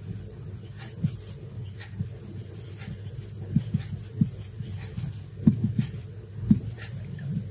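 Whiteboard marker writing on a whiteboard: short scratchy strokes and soft taps of the pen on the board, strongest in the second half, over a steady low hum.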